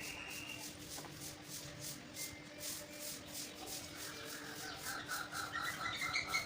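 Rhythmic scratchy rubbing, about four strokes a second, under a steady low hum. Over the last two seconds a bird calls in a quick run of chirps.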